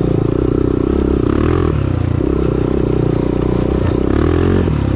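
Honda TRX400EX ATV's single-cylinder four-stroke engine running under load on a rocky trail. The note shifts as the throttle is worked and rises near the end, with loose stones clattering under the tyres.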